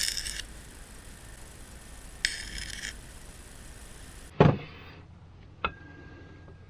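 Metal chainsaw parts being handled and fitted together: a sharp clink, a short rattle about two seconds in, a knock, and a small click with a faint ring near the end.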